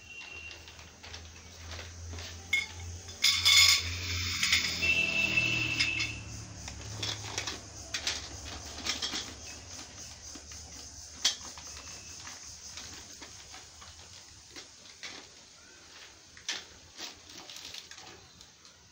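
Carbon steel wardrobe tubes clinking and knocking together as they are handled and gathered into a bundle on a hard tiled floor. A dense, loud stretch of clatter about three to five seconds in, then scattered separate knocks.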